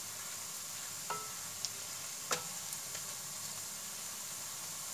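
Sliced onions sizzling steadily in hot oil in a pan, frying towards light brown, with a spatula ticking against the pan a few times as they are stirred.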